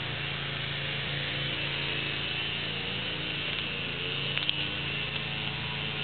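A steady mechanical hum with a hiss over it, and a couple of brief clicks about four and a half seconds in.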